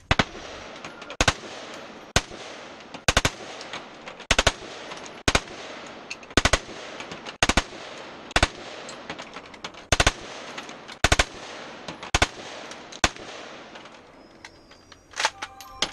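Fully automatic rifle fired in short bursts of two or three rounds, about one burst a second, each burst ringing out with echo between. The firing stops about 13 seconds in.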